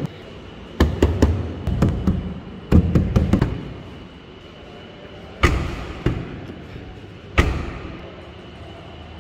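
Hand knocking on the body panels of a BAIC BJ40 Plus: quick clusters of knocks in the first three and a half seconds, then three single knocks spaced farther apart, each with a short ring.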